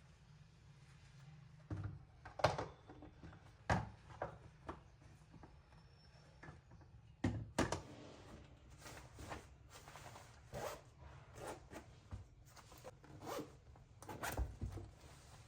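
Irregular light knocks, clicks and rustles of household things being handled, with a few sharper knocks among them, over a faint low hum.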